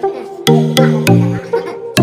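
Electronic background music with a steady, punchy beat and deep bass notes.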